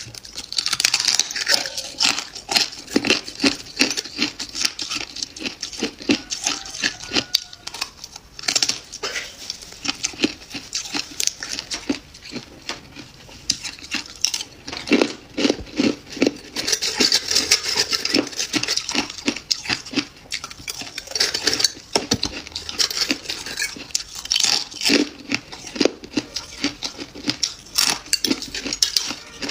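Close-up crunching of freezer frost being bitten and chewed: a dense, continuous run of crisp crackles and crunches.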